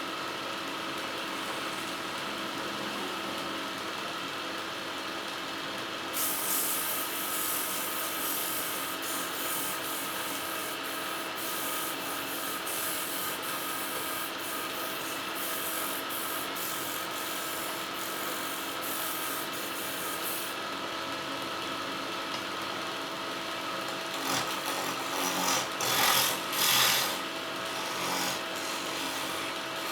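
Wood lathe running with a steady motor hum while a turning tool scrapes against the spinning wood: one long pass from about six seconds in to about twenty seconds, then shorter, louder passes near the end.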